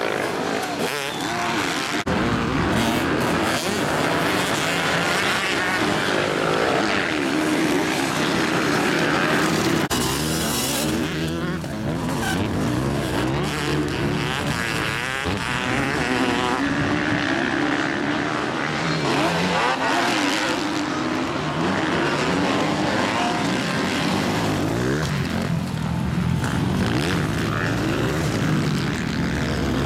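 Motocross dirt bike engines revving hard and easing off over and over, their pitch rising and falling as the riders accelerate and slow through the corners.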